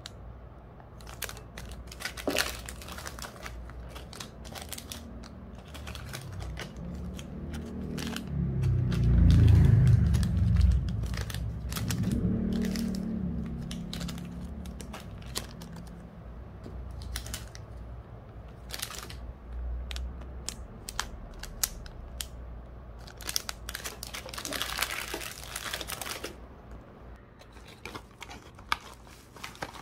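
Small clear plastic bags being handled, crinkling and rustling, with many sharp clicks and taps. A louder low rumbling of handling noise comes in the middle.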